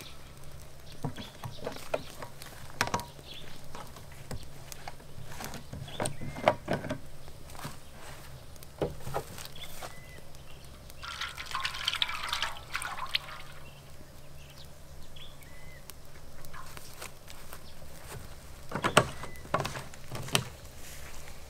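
Water poured from a plastic jug into a steaming wok, a rush of about two seconds midway, with scattered knocks and clatter before and after it.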